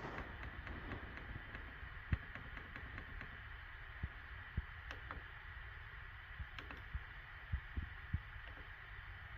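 Bambu Lab P1P 3D printer running a print: a steady hum with a higher tone from the motors and fans, and a few soft low thumps scattered through it.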